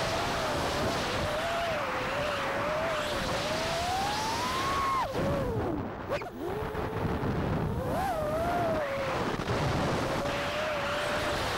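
FPV quadcopter's brushless motors whining, the pitch following the throttle: it climbs to a higher whine about five seconds in, falls away sharply as the throttle is cut for a roll over the roof near six seconds, then rises again around eight seconds. Wind rushes over the onboard camera's microphone throughout.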